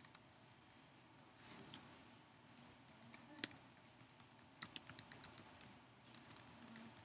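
Faint typing on a computer keyboard: a quick, irregular run of keystrokes that starts a couple of seconds in.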